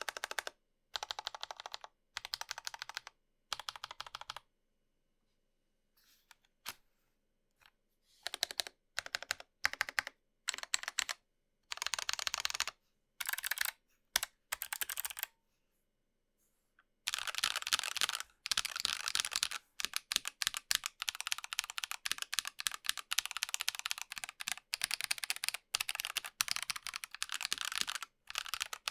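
Fast typing on a Dygma Raise split mechanical keyboard with lubed and filmed Drop Holy Panda tactile switches. Short bursts of rapid keystrokes separated by pauses give way, a little past halfway, to steady continuous typing.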